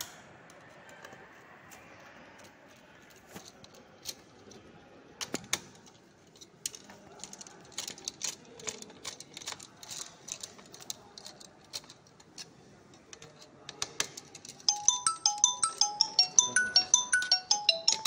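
Faint scattered clicks and metallic taps of a screwdriver working the screws of a CPU heatsink and fan. About fifteen seconds in, a quick tinkling melody of bright, ringtone-like notes starts and is the loudest sound.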